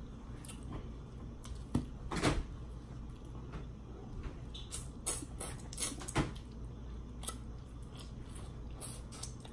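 Close-up eating sounds: scattered short wet smacks and clicks of biting and chewing shrimp, bunched around two seconds in and again a little past the middle, over a faint low steady hum.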